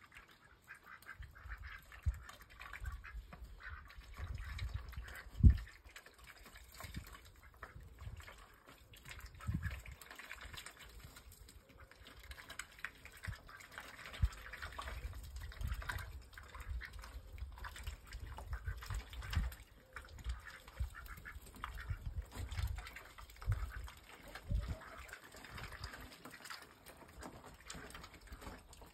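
Indian Runner ducks calling on and off, with low rumbles on the microphone and a sharp thump about five seconds in.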